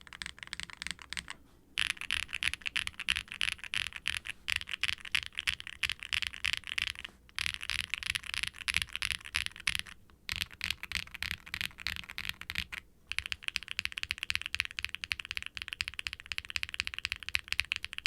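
Fast, continuous typing on a 65% aluminium mechanical keyboard with factory-lubed Keygeek Y3X linear switches and doubleshot ABS keycaps, a deep, creamy, thocky keystroke sound, with a few brief pauses between bursts.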